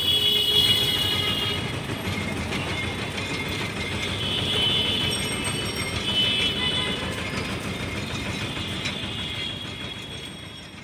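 Busy street traffic noise, a steady rumble with high-pitched tones coming and going, fading out near the end.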